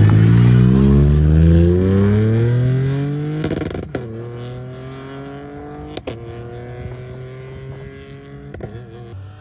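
Ford Fiesta rally car accelerating hard away, its engine revving up and changing up a gear about four, six and eight and a half seconds in. It fades steadily as the car drives off into the distance.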